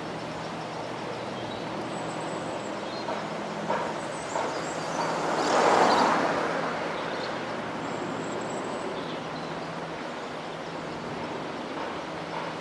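Steam locomotive at a station, with a steady hiss and low rumble; a rush of noise swells and fades about halfway through.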